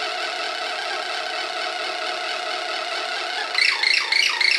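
Circuit-bent Weird Sound Generator analog synth built on a breadboard, putting out a steady buzzing drone. About three and a half seconds in it breaks into a fast stuttering run of squeaky chirps.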